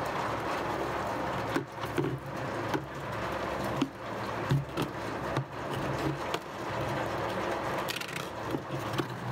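Handling noise of a plastic scoop being fitted under a windowsill and over a plastic bucket: scattered light knocks and rubbing against a steady hiss.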